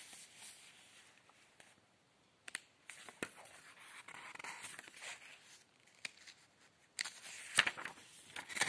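Faint handling noise: a few light clicks, then a louder patch of rustling near the end.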